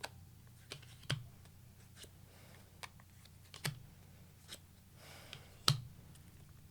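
A string of scattered light clicks and taps at an uneven pace, with one sharper tap near the end.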